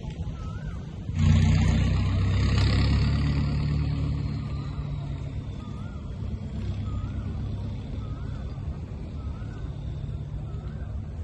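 A motor vehicle passes close by on the street: engine rumble and tyre hiss start suddenly about a second in, then fade over several seconds. A faint warbling tone repeats about once a second.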